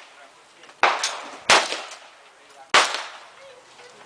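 Three gunshots, each a sharp crack with a short echoing tail. The first two come about two-thirds of a second apart, and the third follows about a second later.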